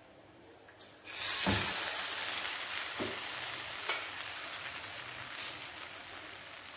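A slice of bread soaked in egg and milk sizzling in hot oil in a non-stick frying pan. The sizzle starts suddenly about a second in as the slice goes into the pan, with a few crackles, then slowly dies down.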